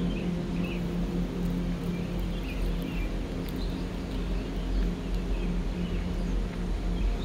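Birds chirping over a steady low drone.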